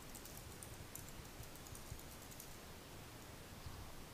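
Faint typing on a computer keyboard: short runs of quiet keystrokes over the first couple of seconds.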